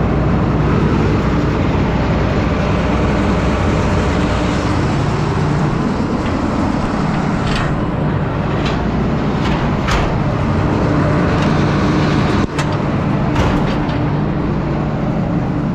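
Grain combine running with its threshing and separating machinery turning, a loud steady mechanical drone with a low hum. A few short sharp knocks and rattles sound over it in the second half.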